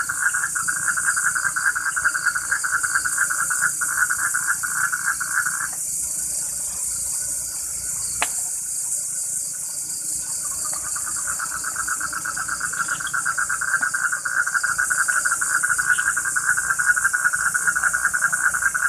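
Night chorus of insects and frogs: a steady high insect trill throughout, over a lower, rapidly pulsing trill that stops about six seconds in and starts again about five seconds later. A single sharp click about eight seconds in.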